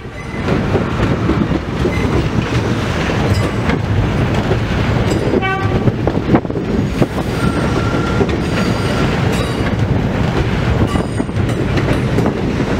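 New York City subway D train of R68-family cars rolling past the platform, a steady rumble with wheels clacking over rail joints. A short horn toot sounds about five seconds in, and a brief high squeal comes a couple of seconds later.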